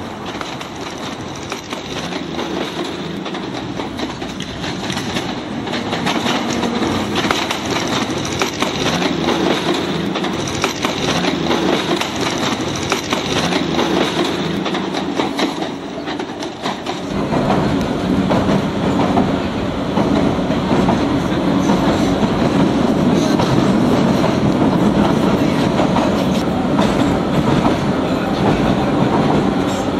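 Electric train running on rails, with the clickety-clack of wheels over the rail joints. About 17 seconds in the sound changes abruptly to a louder, deeper rumble.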